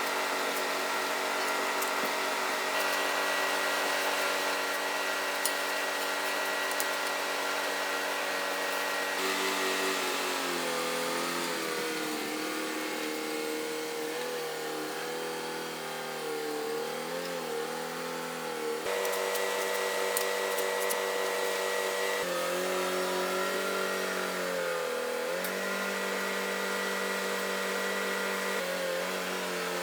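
Forklift engine running, its pitch steady at first, then repeatedly dipping and rising as it is revved under load while tugging and pushing a heavy machine.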